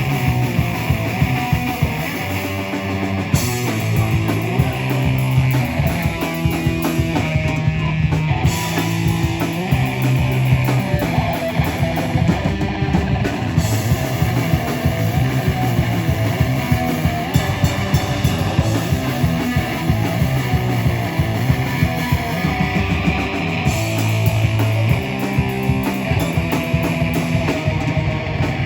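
Live rock band playing loud, fast punk-style music: distorted electric guitars and bass over a drum kit hit in a dense, driving beat.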